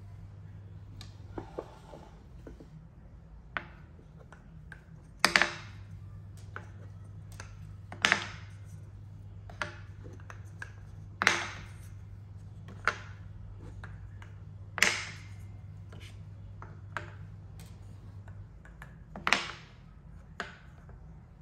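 Solid wooden balls dropped one at a time into a wooden bowl, five sharp clacks with a short ringing rattle, about every three to four seconds. Lighter taps of small wooden cups set down on a marble tabletop come in between.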